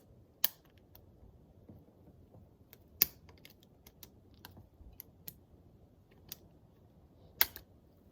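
Scattered sharp clicks and light taps of hard parts or tools being handled, with three louder clicks about half a second, three seconds and seven and a half seconds in.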